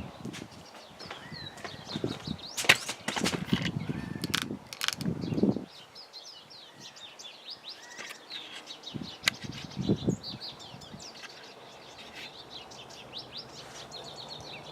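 Small birds chirping steadily in the background, with bursts of rustling and a few sharp knocks from about 2 to 5 seconds in and again near 10 seconds.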